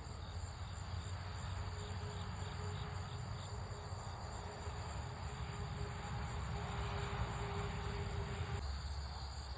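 Steady high-pitched chorus of insects singing. Under it is a low hum with a faint steady tone, which cuts off sharply about a second before the end.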